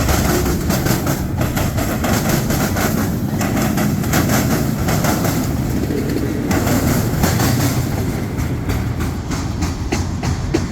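Norfolk Southern freight train's cars rolling past, wheels clicking over the rail joints in a quick steady rhythm over a low rumble, easing slightly near the end.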